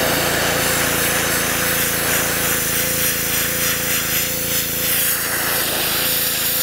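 Pressure washer running steadily with a 15-degree nozzle, a steady hum under the hiss of the water jet spraying onto a raccoon hide on a fleshing beam.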